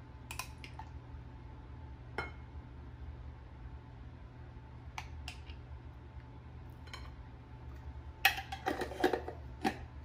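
Metal spoon clinking and tapping against a mayonnaise jar and a ceramic bowl as mayonnaise is scooped onto chopped chicken: a few light clinks spaced apart, then a quick cluster of louder clinks near the end.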